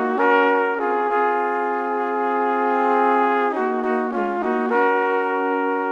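Intro music: a few short notes, a long held chord, then more short notes about four seconds in, leading into another long held chord.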